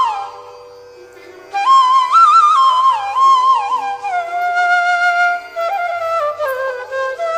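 Background flute music: a single melody with sliding, bending notes over a steady drone. The melody fades out just after the start and comes back in about a second and a half in.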